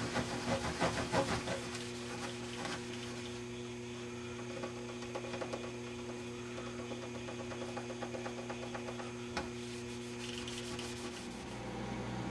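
Fingertip rubbing plastic polish over a Bakelite television cabinet: quick scratchy strokes, busiest in the first two seconds, then a lighter, steadier rubbing. A steady hum sounds underneath and stops near the end, and there is a single click about nine seconds in.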